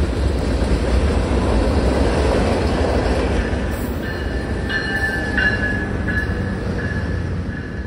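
Freight train rolling past with a steady low rumble and wheel clatter. About halfway, as a Tri-Rail commuter train pulls in alongside, a high, steady wheel squeal joins in and holds.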